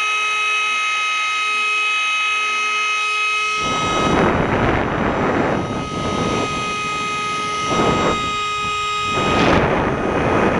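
Small 3D-printed centrifugal blower with its impeller spinning fast, giving a steady high whine with several pitches. About a third of the way in, bursts of loud rushing air come and go four times over the whine.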